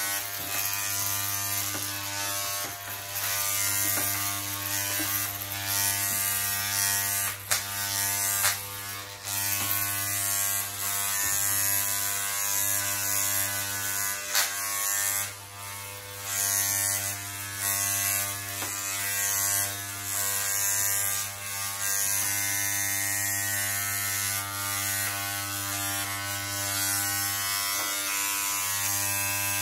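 Corded electric hair clippers buzzing steadily as they cut short hair, the sound swelling and dipping as the blades move over the head, with a few brief clicks.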